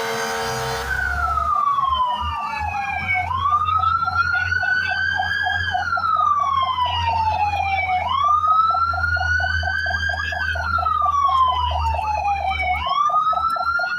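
Fire truck siren wailing. Each cycle sweeps quickly up and then slides slowly down, repeating about every five seconds, with a fast flutter on the tone and a low engine rumble underneath. A steady multi-tone sound cuts off about a second in.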